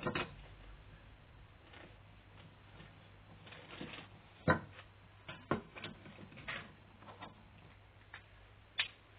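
Hand work on a Triumph Stag carburettor being taken apart on a metal workbench: a handful of sharp metallic clicks and knocks as parts and tools are handled and set down, the loudest about halfway through.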